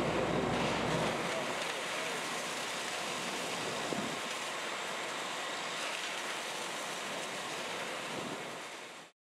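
Steady rushing noise of fire hose water streams with wind on the microphone, fading and then cutting off abruptly near the end.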